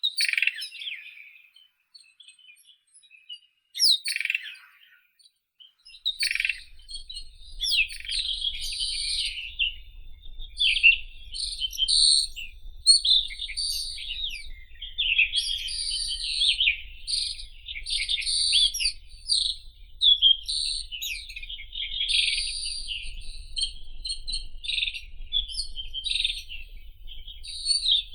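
White-throated robin (Irania gutturalis) singing: two short phrases, then from about six seconds in a continuous run of fast, varied warbling phrases.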